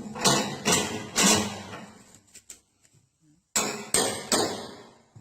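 Sharp metallic knocks, like metal being struck with a hammer, each ringing briefly: three in quick succession, a pause of about two seconds, then three more.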